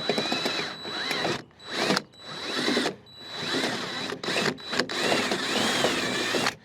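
Power drill enlarging a hole in the sheet metal of a 1964 Chevrolet Impala's body, running in several bursts with short pauses, its whine rising and falling in pitch.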